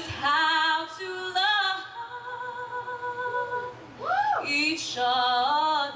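A young girl's solo singing voice through a handheld microphone, holding sung notes with vibrato and sweeping quickly up and down in pitch about two-thirds in.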